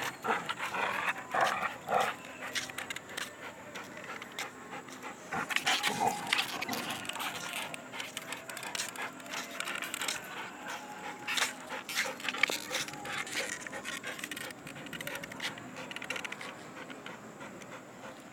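A dog panting, with scattered light clicks and knocks throughout.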